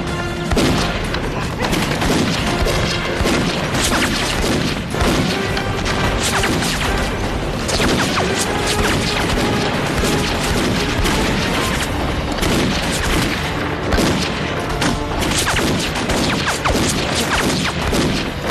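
Gunfire and booms of a battle, many shots and impacts in quick succession, over background music.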